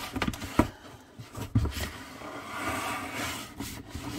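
Cardboard boxes being handled: a few light knocks and a thump, then about a second and a half of rustling and scraping as a boxed kit is drawn out of a cardboard shipping carton.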